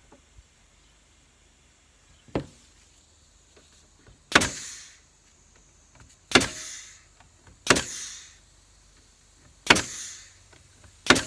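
A nail gun fastening wood, firing five times a second or two apart. Each shot is a sharp double crack with a short fading tail. A lighter click comes about two seconds in.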